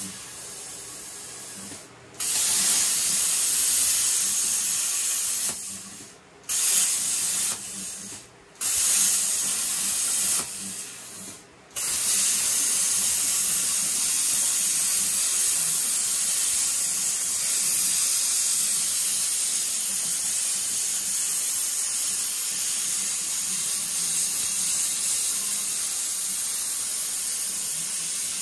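CNC plasma torch cutting metal: a loud steady hiss from the arc. It stops and restarts several times in the first twelve seconds, then runs on without a break.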